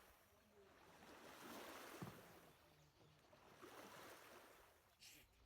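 Faint lake water washing in swells that rise and fall about every two seconds.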